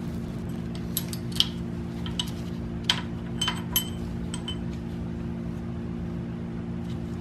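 Light metallic clinks, about eight of them in the first half, as sprocket bolts and a thin steel plate are taken off the camshaft sprockets of a BMW M50 timing chain assembly. A steady low hum runs underneath.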